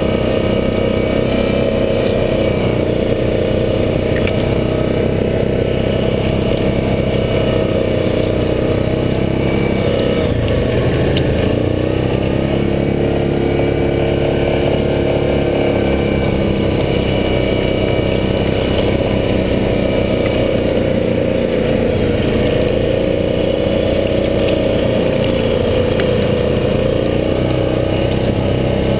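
Yamaha Grizzly ATV's single-cylinder four-stroke engine running under load on a trail ride. The engine speed drops and picks back up twice, about ten seconds in and again past the twenty-second mark.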